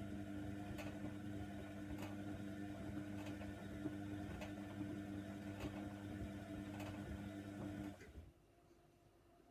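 Hoover Nextra washer dryer running with a steady electrical hum and a faint tick about once a second, cutting off suddenly about eight seconds in.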